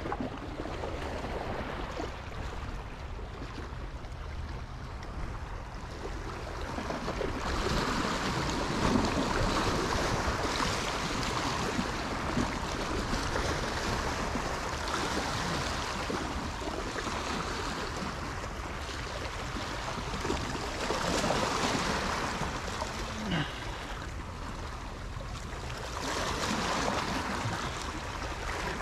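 Sea waves washing and breaking against shoreline rocks, a steady wash that swells louder several times as bigger waves come in.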